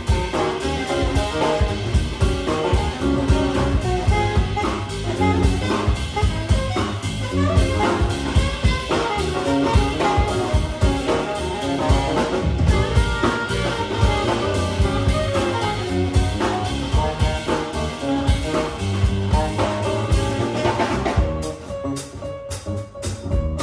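Live jazz band playing: saxophone over piano, electric guitar, double bass and drum kit with cymbals. About 21 seconds in the cymbals and saxophone drop away and the music thins to guitar and bass.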